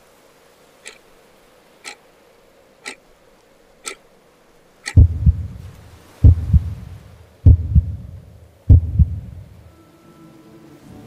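Clock-like ticks, one sharp tick a second, then a deep heartbeat sound effect: four loud double thumps (lub-dub) about a second and a quarter apart, starting about five seconds in, with the sound dying away near the end.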